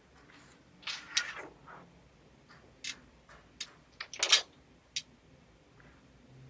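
Keys and a door handle rattling at a locked front door, heard through a doorbell camera's microphone: a run of irregular metallic clicks and rattles, the loudest a little after four seconds in.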